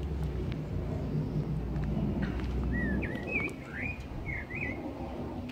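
A songbird singing one short phrase of quick, swooping whistled notes about three seconds in, over a low steady rumble that stops at about the same time.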